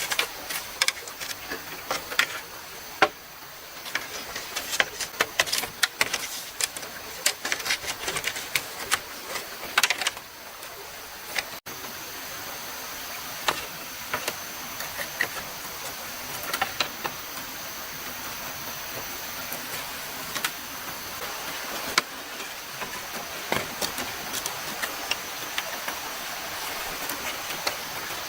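Irregular sharp clicks and light knocks from hand work on bamboo, dense for the first ten seconds and sparser after an abrupt break, over a steady high hiss.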